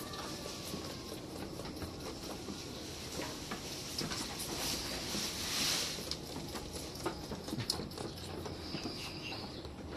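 Goat kid sucking milk from a feeding bottle's rubber nipple, with scattered light clicks and knocks.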